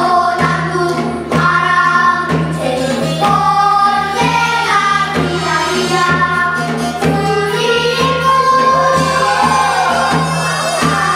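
Children's choir singing a Korean folk song (minyo) in unison over instrumental accompaniment. A regular percussion beat runs under the voices.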